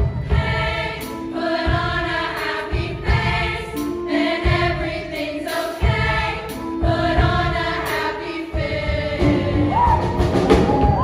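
High school show choir singing in harmony over instrumental accompaniment, with drum hits marking the beat.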